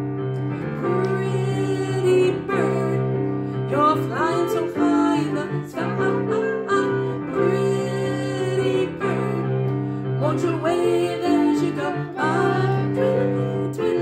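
Electric keyboard playing a children's song with women singing along.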